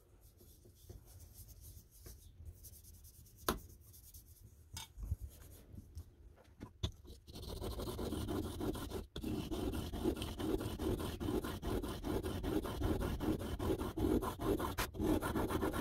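A steel blade being honed by hand on an oiled sharpening stone. It starts quietly with a few light clicks, then from about seven seconds in there is steady, rhythmic back-and-forth scraping of metal on stone.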